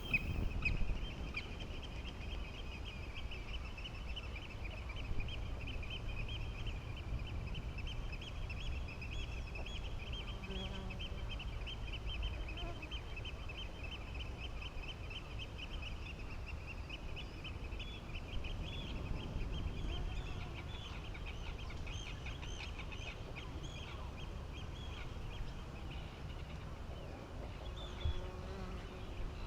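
A flock of birds, likely waterfowl, calling without a break: a dense chatter of quick, high calls, over a low steady rumble.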